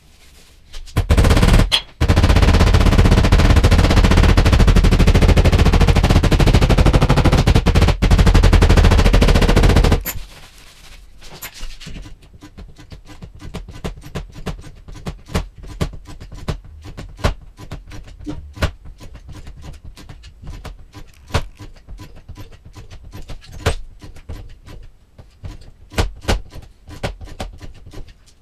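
A loud, rapid-firing power tool runs for about nine seconds, starting with a short burst about a second in. It then stops and gives way to a long irregular run of sharp taps and knocks.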